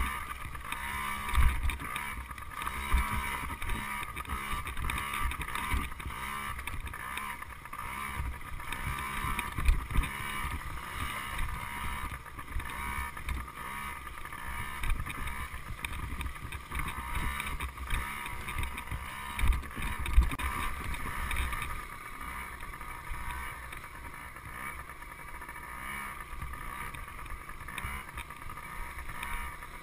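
Dirt bike engine running at steady speed while riding a rough trail, with irregular low thumps from bumps and wind on the bike-mounted camera.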